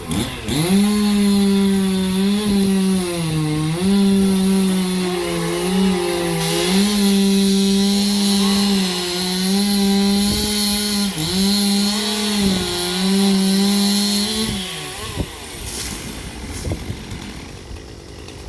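Two-stroke chainsaw cutting wood: it revs to full throttle just after the start and holds a high, steady whine for about fourteen seconds, with several brief drops in pitch as the chain bogs in the cut, then falls back toward idle near the end.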